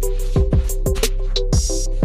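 Background music with an electronic beat: a deep kick drum that drops in pitch, sharp hi-hat ticks and a held synth chord.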